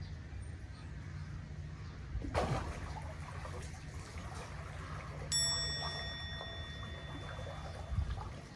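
A landing net is plunged into the creek water with a splash about two seconds in. About five seconds in comes a sharp ringing ding that fades away, and there is a low thud near the end.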